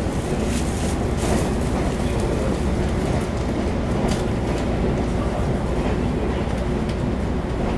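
Taiwan Railway EMU700 electric commuter train running at speed, heard from inside the passenger car: a steady rumble of wheels on rail with motor hum and a few sharper clicks.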